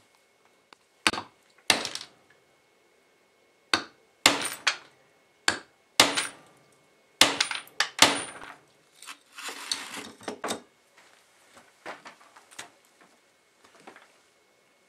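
Hammer blows on a steel punch held in a holed metal block on a wooden bench: about a dozen sharp metal strikes with a brief ring, at uneven intervals and some in quick runs. After them come fainter clinks and rattling as the tools are handled.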